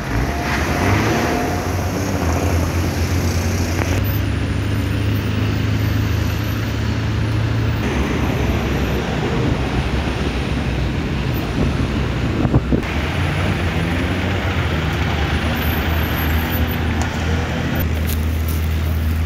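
Roadside highway traffic noise: a steady low engine hum from nearby vehicles under a broad wash of passing traffic, with one short sharp knock about two-thirds of the way through.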